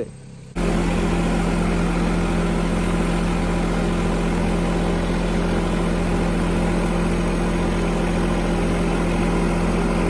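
An engine running steadily at one speed, with the hiss of a hand spray wand on a hose spraying liquid. It starts abruptly about half a second in and holds steady throughout.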